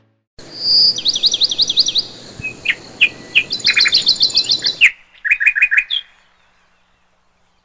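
Small songbird singing: fast runs of high, sweeping chirps in repeated phrases over a faint background hiss, cutting off abruptly about five seconds in, followed by one shorter run of chirps.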